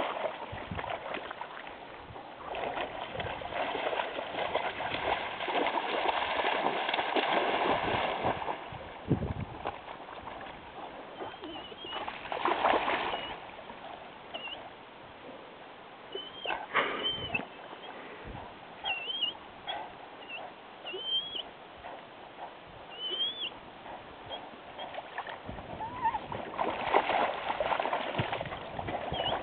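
A Great Dane wading and splashing through shallow lake water, in two long spells at the start and near the end. In between comes a string of short, high, squeaky calls that rise and fall.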